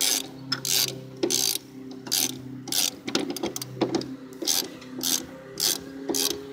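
A ratchet tool working a 10 mm bolt on a car's shock absorber mount, swung back and forth in repeated clicking strokes about one every two-thirds of a second.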